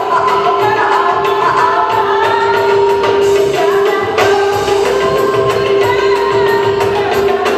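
Live band music with singing played over a loudspeaker, a steady held note sounding underneath the melody.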